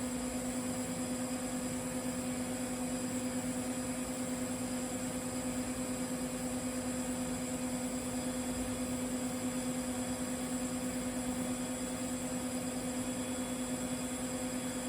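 TIG welding arc running on a carbon-steel pipe, a steady buzz with a high hiss that holds even throughout.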